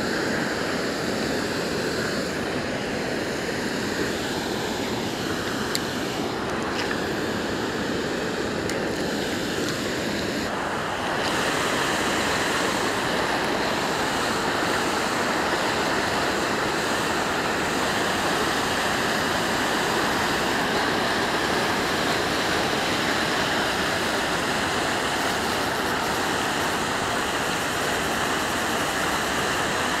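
Water pouring over a low river dam weir and churning below it: a steady rushing of whitewater, a little louder from about eleven seconds in.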